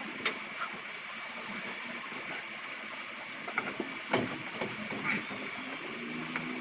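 A few sharp knocks and taps of wooden widowhood boxes being pushed and shifted into place against a wall, the loudest about four seconds in, over a steady faint hiss.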